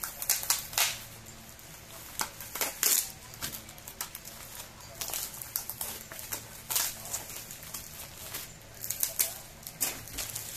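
Thin plastic packaging crinkling and crackling irregularly as plastic sachets are handled and pulled out of a black plastic bag.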